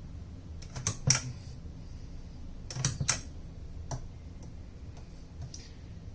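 Keys of a small antique Bennett typewriter being pressed and striking, sharp clacks in pairs about a second in and about three seconds in, then a single clack and a few fainter ones.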